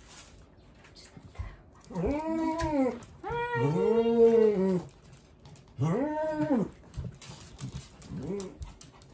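An old dog crying out in four drawn-out whining howls, each rising and then falling in pitch, the second the longest and loudest and the last short. These are the distressed cries of an elderly dog who is unwell.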